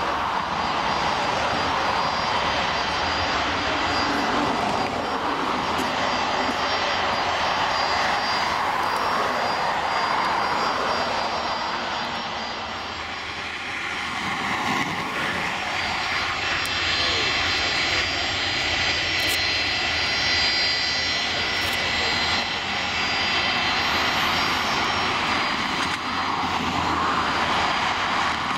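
Airliner's engines running at the airport: a steady roar with high whining tones on top, dipping slightly for a moment about halfway through.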